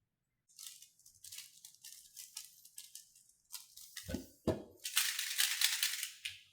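A plastic 3x3 speed cube being turned by hand: quick clicking and clacking of the layers, with two low knocks about four seconds in, then a dense, rapid clatter of turns near the end.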